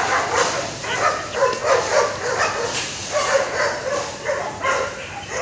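A dog barking and yelping in quick succession, about three calls a second.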